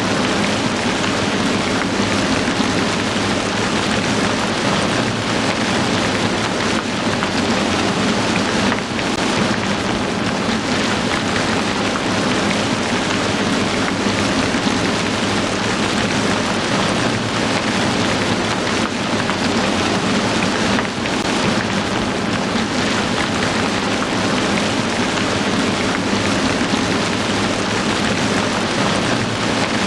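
Heavy rain falling steadily: a dense, even hiss of drops on surfaces.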